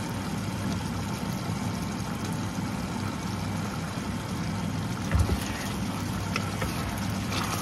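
A steady low hum, with a wooden spoon stirring chicken curry in a saucepan: a heavy knock about five seconds in, then a few light clacks against the pot.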